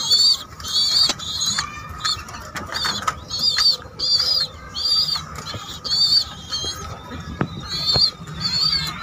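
Racing pigeon squabs begging: high-pitched squeaky calls repeated about twice a second, with a few light clicks and taps.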